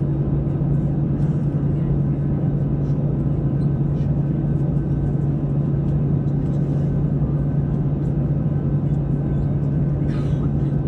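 Airbus A320-200 passenger cabin at a window seat: the jet engines and airflow give a steady drone with a strong low hum, holding level throughout.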